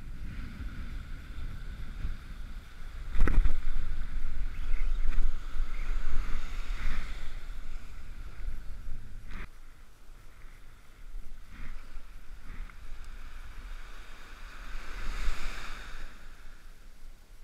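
Wind buffeting the microphone, with small surf breaking and washing up a sandy beach. A few sharp knocks, the loudest about three seconds in.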